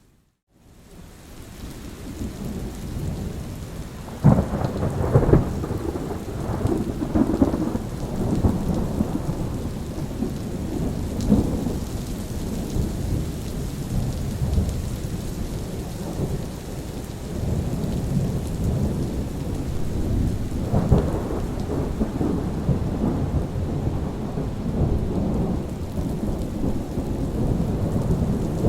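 Steady rain with rolling thunder. After a brief dropout at the start the rain fades back in, and thunder rumbles and crackles from about four seconds in, swelling again around twenty-one seconds.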